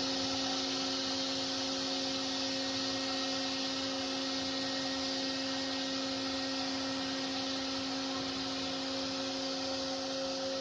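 CNC cutting machine running steadily, a hum of a few held tones over an even hiss.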